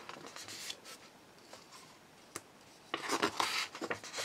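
Paper pages of a hardback book being turned by hand: a short rustle of paper near the start, a single light tick around the middle, then louder rustling and sliding of paper in the last second or so.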